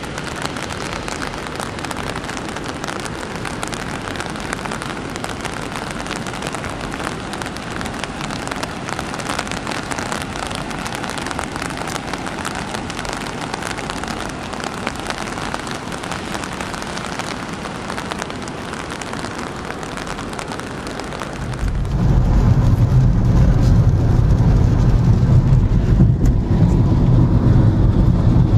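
Steady rushing of falling water, even and unbroken. About 22 seconds in it cuts to a louder, deep road rumble of a car driving, heard from inside the cabin.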